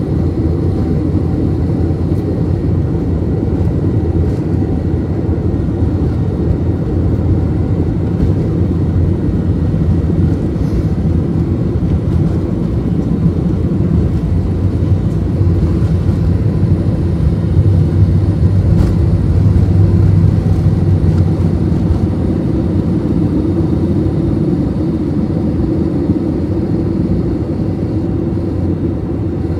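Airbus A321 cabin noise during a night takeoff roll and climb-out: the jet engines at takeoff power with a steady low rumble, loudest about two-thirds of the way through and easing a little near the end.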